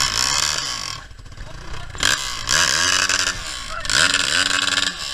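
Dirt bike engine revved in three bursts of throttle, each rising and falling in pitch over about a second, as it is ridden up a steep, muddy hill climb.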